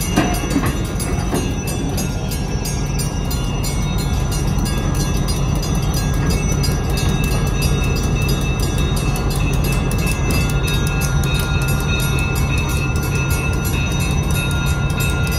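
Two EMD GP15-1 diesel locomotives passing at low speed, their V12 645 engines running with a steady low drone. The wheels give a few sharp clicks over the crossing near the start, and a crossing bell rings through the treble.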